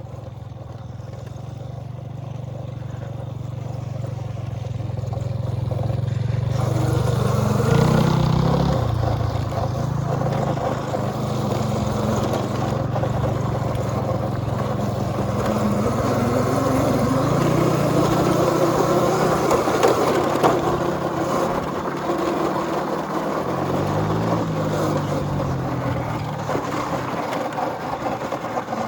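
Small 110cc pit bike engine running, its pitch rising and falling with the throttle. A rushing noise of wind and tyres grows louder from about six seconds in.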